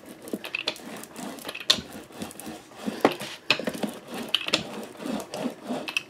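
A rubber brayer rolled back and forth over glued cardstock, pressing it flat: an uneven dry rubbing with a few sharp clicks or knocks, the loudest a little under two seconds in and around three seconds in.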